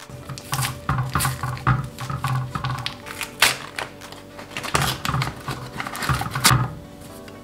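Paper flour packet being opened by hand, its folded top crinkling and rustling in irregular bursts that stop near the end.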